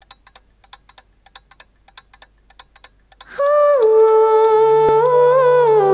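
A clock ticking faintly, about four ticks a second. About three seconds in, music comes in loud: a held melodic line that steps and bends slowly in pitch, over a high shimmering wash.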